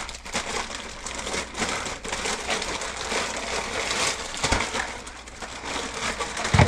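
Clear plastic bag crinkling and rustling as parts are handled, with a dull knock about four and a half seconds in and a louder one near the end.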